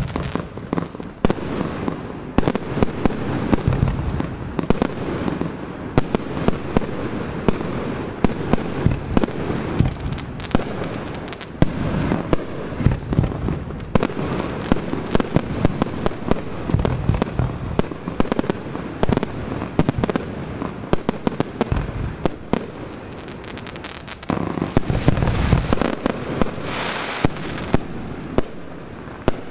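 Aerial firework shells launching and bursting in quick, overlapping succession: many sharp bangs a second over a continuous rumble, growing denser and louder for a few seconds near the end.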